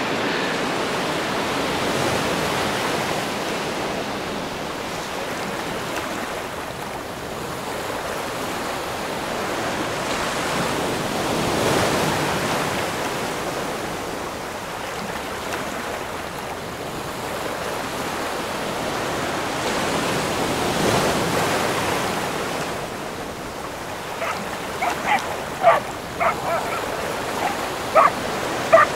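Ocean surf washing onto a beach: a steady rush of waves that swells and eases every several seconds. In the last few seconds, short sharp yips and barks from two dogs playing.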